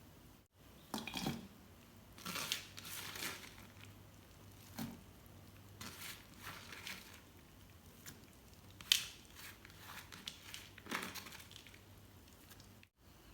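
Irregular kitchen food-prep noises: short crunching, scraping and rustling strokes, with one sharper click about nine seconds in.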